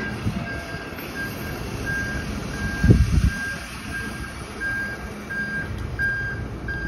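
Flatbed tow truck's reversing alarm sounding a steady high beep about one and a half times a second over a low engine rumble, with a brief low thud about three seconds in.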